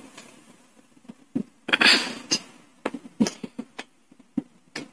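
Wooden shape-sorter pieces clicking and clacking as they are handled and dropped onto the board's wooden pegs, a few separate knocks with a louder clatter about two seconds in.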